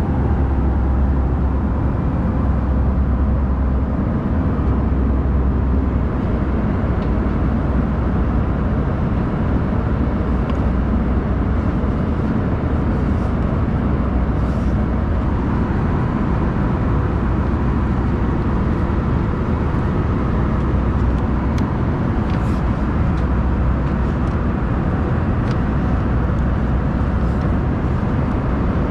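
Steady roar of jet engine and rushing air heard inside the cabin of an Airbus A319, with a strong low rumble and an even level that does not rise or fall.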